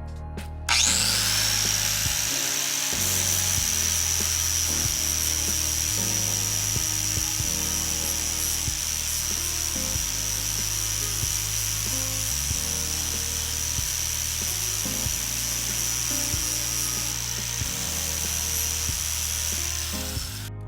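Electric 4-1/2 in angle grinder with a 60-grit flap disc, spinning up about a second in and then running steadily with a high whine as it grinds metal. Background music with a steady low bass line plays throughout, and the grinder cuts off just before the end.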